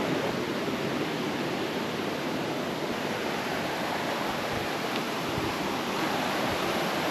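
Steady rush of water from a waterfall and creek, an even hiss that stays level throughout.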